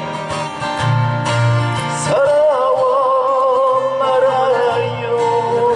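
Live acoustic guitar strumming through a PA, with a steady bass line, accompanying a voice singing. About two seconds in the voice slides up into a long held note with vibrato.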